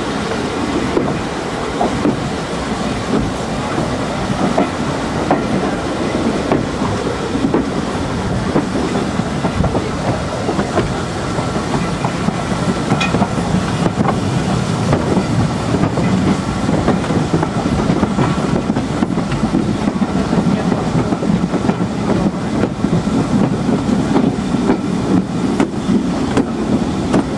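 Railway carriage running along the track, heard close up from its open window: a steady rumble with the wheels clattering over the rails.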